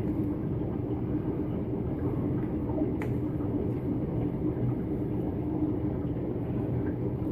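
Steady low hum of background room noise, with one faint click about three seconds in.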